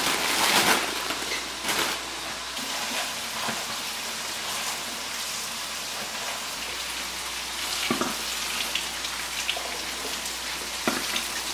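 Kitchen faucet running water onto leafy greens and radishes in a plastic colander, a steady splashing hiss. In the first second, a plastic produce bag crinkles as the greens are taken out.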